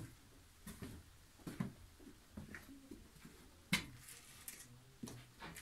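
Footsteps in a narrow stone tunnel: short, irregular scuffs and steps at a walking pace, about one a second, with a sharper one near the middle.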